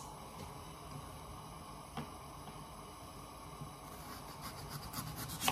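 Quiet kitchen room tone with a single click about two seconds in, then faint knife ticks against a wooden chopping board near the end as a potato is cut.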